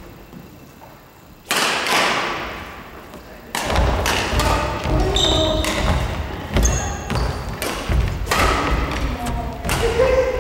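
A badminton rally on a wooden gym court: sharp racket strikes on the shuttlecock, starting about a second and a half in, with footfalls thudding and shoes squeaking on the floor. The impacts echo in the large hall.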